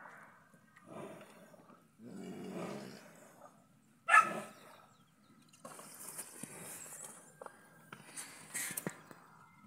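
Cattle at a plastic feed tub: irregular snuffling and shuffling noises, with one short, loud animal call about four seconds in.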